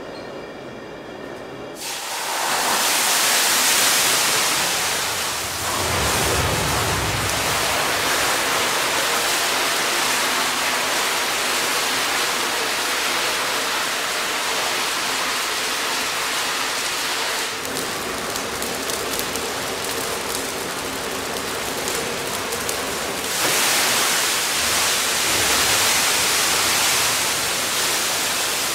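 Turkey fryer fire: about two seconds in, a sudden rush of noise as the hot oil boils over and ignites, then the flames burn on as a loud, steady rushing noise like heavy rain, swelling louder again near the end.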